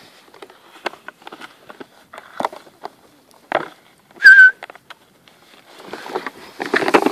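Dog rooting in deep snow with a plastic bucket: scattered knocks and scuffs of the bucket and snow, a short high whistle about four seconds in, the loudest sound, and a stretch of crunching, rustling snow near the end.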